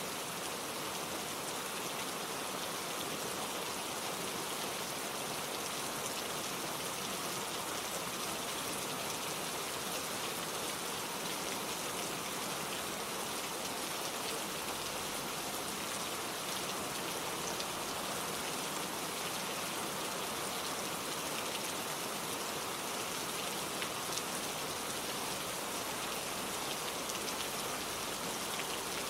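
Steady gentle rain falling, an even patter of drops with no thunder.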